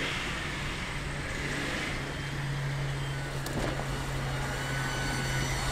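A 1978 Datsun 280Z's straight-six engine running steadily as the car drives across a grassy yard, on its first drive after more than 30 years sitting. A brief click about three and a half seconds in.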